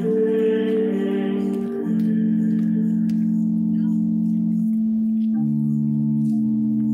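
A choir sings the last held notes of a communion antiphon over sustained organ chords; the voices stop about three seconds in, leaving the organ holding the final chords, with low bass notes entering past the middle and stepping down.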